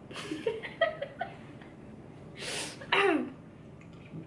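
A person's short non-speech vocal sounds: a sharp breathy exhale at the start, a few small murmurs, then a stronger cough-like exhale just past halfway, followed by a voiced 'mm' that falls in pitch.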